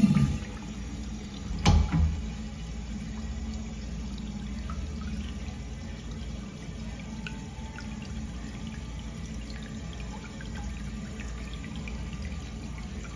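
American Standard 1.0 gpf urinal flushing through its manual flush valve: water runs steadily into the bowl and over the screen. A short double knock comes about two seconds in.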